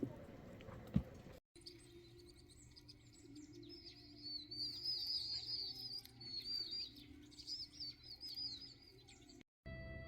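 Small birds chirping in a rapid, busy chorus of short high chirps, after a couple of sharp knocks in the first second.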